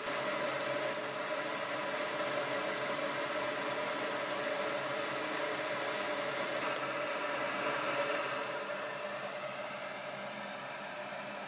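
Pieces of pork intestine sizzling on a wire grill over charcoal, a steady hiss with a few faint pops, over the constant hum of a ventilation fan.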